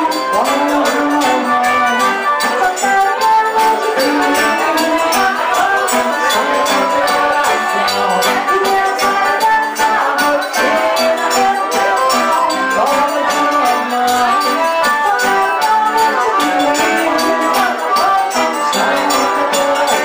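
Live forró band playing: accordion, guitar, zabumba drum and hand percussion keeping a steady, driving rhythm.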